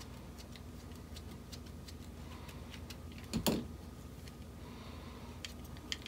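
Faint, scattered ticks and clicks of a small precision screwdriver unscrewing a tiny screw from a drone circuit board, with one louder knock about three and a half seconds in.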